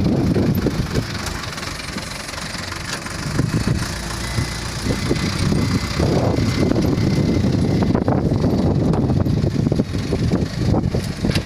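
Diesel engine of a Volvo 55W wheeled excavator running while it works. It eases off about a second in and picks up again around six seconds in, with a few scattered knocks.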